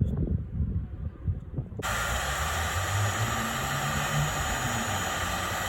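A few low handling knocks, then about two seconds in a heat gun switches on and runs with a steady blowing hiss and fan-motor hum, shrinking heat-shrink tubing over crimped wire connections.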